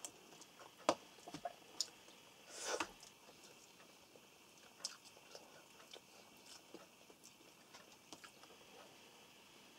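People eating at a table: faint chewing with scattered small clicks of cutlery on plates. The sharpest click comes about a second in.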